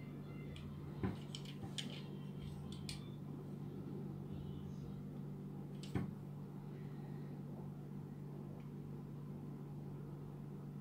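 Small plastic clicks and taps as a toy fire engine, a transforming robot figure in vehicle mode, is handled and turned in the fingers: one sharp click about a second in, a quick run of clicks over the next two seconds, and another sharp click about six seconds in. A steady low hum lies underneath.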